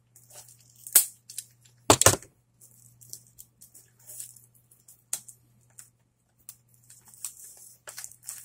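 Hands handling a plastic Blu-ray case and its packaging: scattered clicks and plastic rustling, with two sharp knocks about one and two seconds in, the second the loudest.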